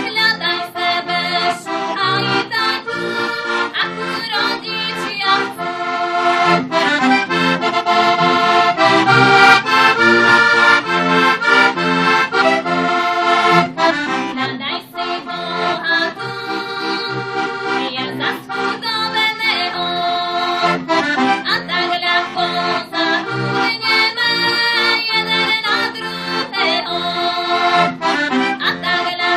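Heligonka, a Slovak diatonic button accordion, playing a folk tune: chords and melody over a steady, regular bass beat.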